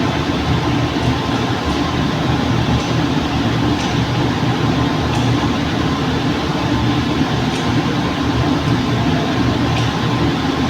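CNC glass-cutting machine running: a steady mechanical drone with a low hum and a few faint ticks.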